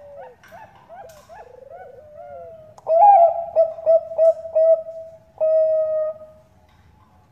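Perkutut bangkok (zebra dove) cooing song. Fainter trilled coos come first; about three seconds in a loud phrase starts, a run of short coos ending on one long held note, and it stops over a second before the end.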